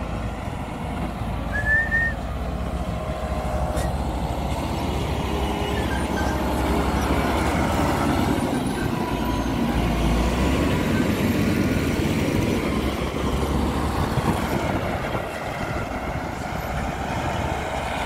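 Caterpillar 140H motor grader's diesel engine running as the grader works its blade through loose lateritic soil. It grows louder as the machine passes close by around the middle, then eases off slightly toward the end.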